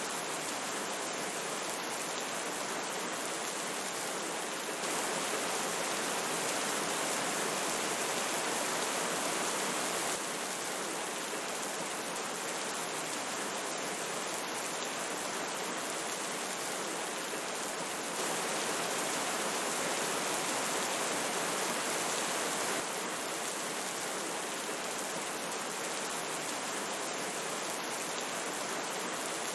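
Steady rushing of a river with rain falling, a fine patter of drops over the flowing water. The level steps up a little twice, for a few seconds each time.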